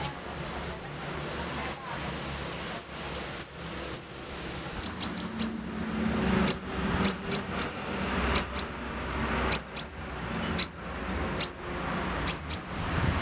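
Sogon bird calling: a series of sharp, high chirps, each sweeping quickly downward, given singly or in quick runs of two to four, with a faint low hum underneath.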